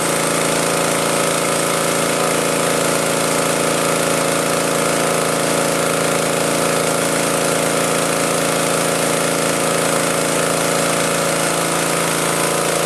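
Petrol-engine-driven high-pressure breathing-air compressor (H5.5AK150) running steadily, filling a scuba cylinder; an even engine-and-pump drone with no change in pace.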